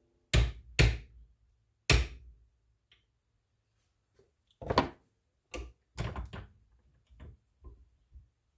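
Ball peen hammer tapping a nail punch against a tight pin in a fishing reel's bridge held in a vise: about ten sharp taps at uneven spacing, the loudest in the first two seconds and again about five seconds in.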